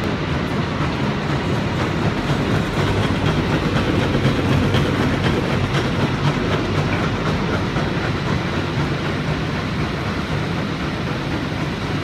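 A San Francisco cable car running past on its rails: a steady rattle and rumble, loudest about four to five seconds in as it goes by close, then easing a little as it moves off down the hill.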